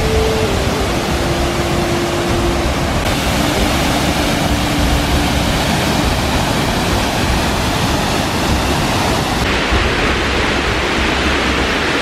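Waterfall pouring over rock into a pool: a loud, steady rush of falling water. Its hiss shifts slightly about three seconds in and again near the end.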